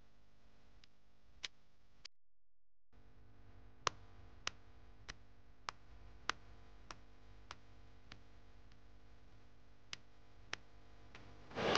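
Faint, evenly spaced ticking, about one tick every 0.6 seconds, over a low steady hum. The sound drops out completely for under a second about two seconds in, and music comes in at the very end.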